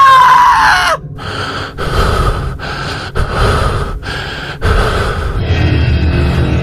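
A woman's-pitch scream, falling in pitch as it stops about a second in, followed by several loud ragged gasping breaths in quick succession, as in a horror sound effect.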